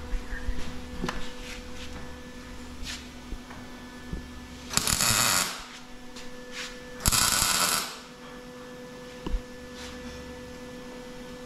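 MIG welder arc crackling in two short tack welds, each under a second long, about two seconds apart, putting mild steel onto a tube frame. Small clicks and knocks from handling the work come before them, and a steady electrical hum runs underneath.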